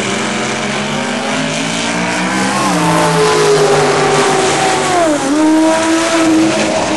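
Turbocharged Mazda 20B three-rotor rotary engine of a dragster at full throttle on a drag-strip run, its pitch climbing, with a sharp dip and recovery about five seconds in.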